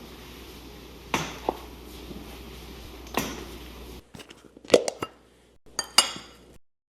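Dishes and utensils clinking and knocking, a few sharp strikes about two-thirds of the way in, after a stretch of steady hiss with a few light knocks.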